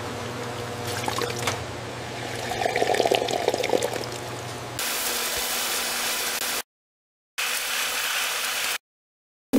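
AI-generated bottling-line sound effects: liquid pouring and filling into glass bottles over a steady machine hum with light clicks, swelling louder about halfway through. Then it cuts abruptly to a steady hiss that drops out twice for a moment.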